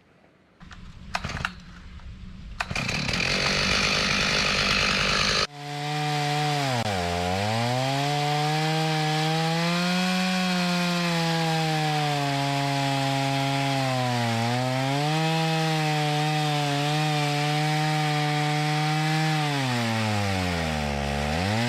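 A chainsaw engine runs at high revs while cutting firewood; its pitch sags and recovers about three times as the chain bites into the wood. Before that come a few sharp knocks and a rougher, noisier running sound, which stops abruptly about five seconds in.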